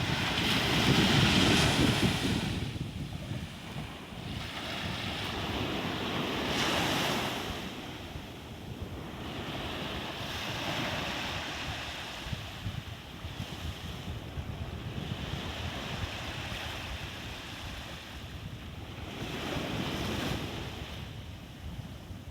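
Ocean waves breaking and washing in, swelling and fading about every four to five seconds, with wind buffeting the microphone in a low rumble.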